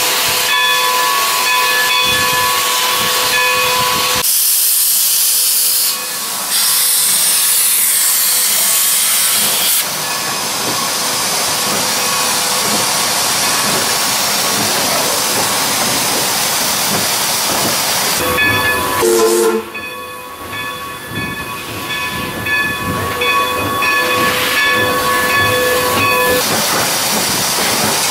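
Steam locomotive hissing steam, with a thin steady whistling tone over the hiss. From about four to ten seconds in a louder, high-pitched rush of escaping steam takes over, and the whistling tone returns from about eighteen seconds in.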